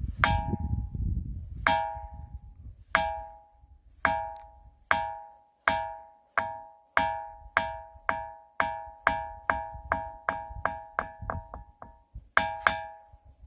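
A ringing rock struck again and again, each blow giving a clear, bell-like ring of several tones that dies away within a second. The strikes come faster and faster until about twelve seconds in, then pause briefly before two more.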